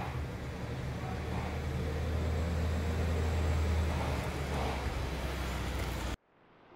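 A steady low mechanical rumble with a general hiss over it, a little stronger in the middle, that stops abruptly near the end.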